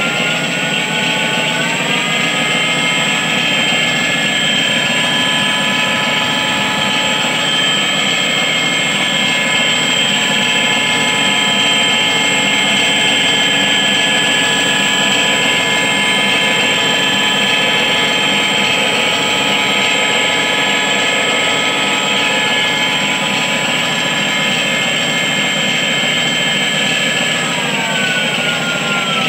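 Electric RC model Sea Fury's propeller running up, its motor whine rising over the first couple of seconds, holding steady for most of the time, then winding down near the end. Under it runs the steady rumble of the onboard sound module's simulated aircraft engine.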